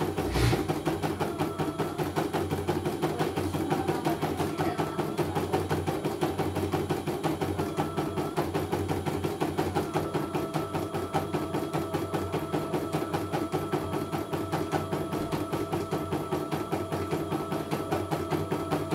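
CNY E900 computerised embroidery machine stitching a design: a rapid, even clatter of the needle over the steady hum of its motor, with one louder knock about half a second in.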